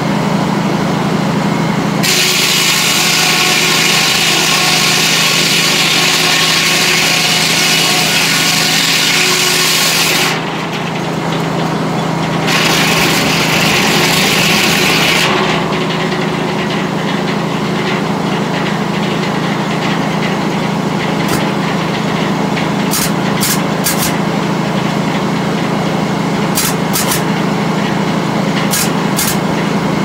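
Sawmill's large circular head saw and its machinery running with a steady hum. About two seconds in, the saw cuts into a log with a loud sawing noise for about eight seconds, breaks off briefly, then cuts again for about three seconds. After that the mill runs on without cutting, with a few sharp ticks near the end.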